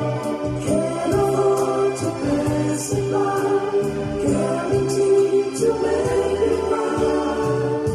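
Music with choir-like singing voices holding sustained chords, over a light percussion beat.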